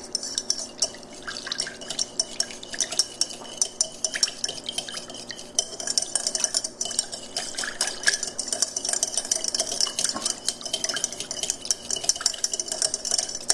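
A utensil stirring and whisking soy sauce and hoisin sauce together for a glaze, quick repeated scraping and clicking against the side of the bowl.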